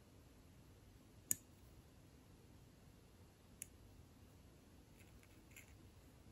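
Small scissors snipping the nibs off a tiny photo-etched brass part: a sharp snip about a second in, a smaller one a couple of seconds later, and a few faint clicks near the end, otherwise near silence.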